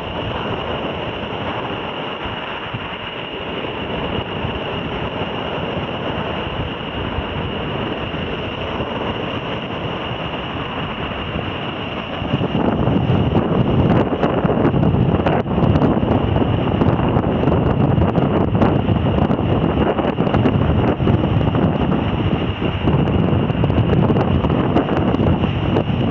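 Sea waves breaking and washing up a pebble beach, with wind buffeting the microphone. It gets louder about halfway through.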